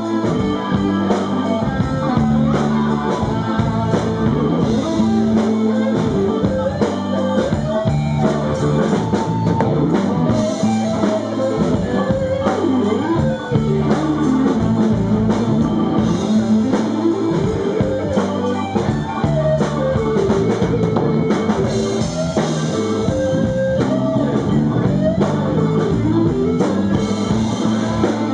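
Live rock band in an instrumental break: a lead electric guitar solo on a Les Paul-style guitar through an amplifier, with bending, singing notes over drums and a steady low backing.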